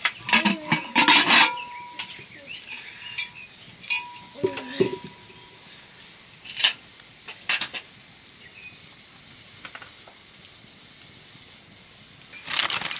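Kitchenware clinking and scraping: utensils against metal dishes and pots, with a cluster of sharp clinks, a few scattered strikes after it, and a denser clatter near the end.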